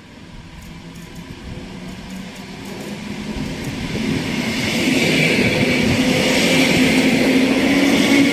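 An EN57 electric multiple unit approaches and runs past along the platform, growing louder over the first five seconds and then staying loud. Wheels rumble and hiss on the rails, with a steady hum underneath that rises slightly in pitch.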